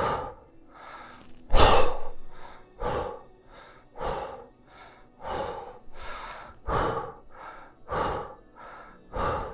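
A man breathing hard and in rhythm through a set of kettlebell presses: a breath in as the bell goes up and a sharp breath out as it drops back to the rack, a loud breath about every second with softer ones between.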